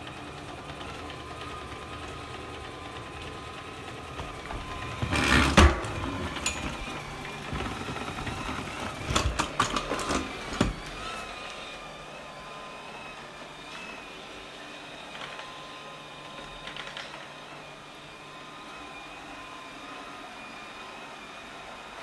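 LG Hom-Bot robot vacuum running, its motor and brushes giving a steady whine. Loud knocks and clatter come about five seconds in and again around nine to eleven seconds in, and the low rumble eases off after that.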